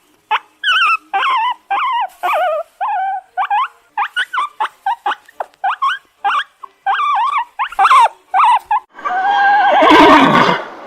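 A quick run of short, wavering, high-pitched animal calls, then about nine seconds in a loud horse whinny lasting about two seconds.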